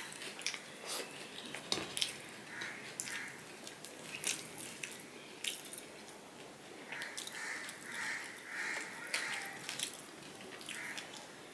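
Close-miked eating sounds of a man eating rice and fried hilsa fish by hand: wet chewing and sharp lip smacks at an irregular pace, with his fingers mixing rice on the plate.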